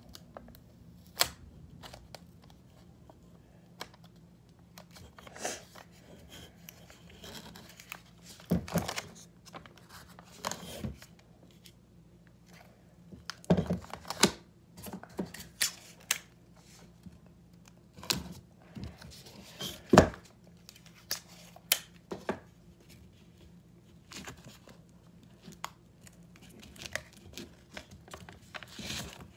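Clear sticky tape being pulled off and torn, and printer paper crinkling as it is folded and pressed around a wooden block, in an irregular string of short rips, crinkles and sharp knocks. The loudest rip comes about two-thirds of the way through.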